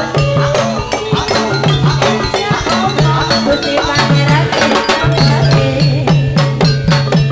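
Javanese jathilan gamelan accompaniment played loud through a sound system: dense, rapid drum and metal-percussion strikes with repeated low drum notes and ringing metallic tones.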